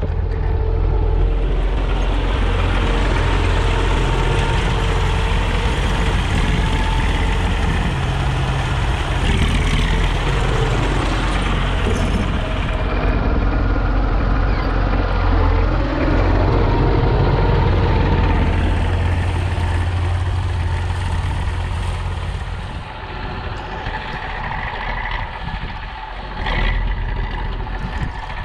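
Belarus MTZ-50 tractor's four-cylinder diesel engine running steadily under load while clearing snow, easing off a little about three quarters of the way through.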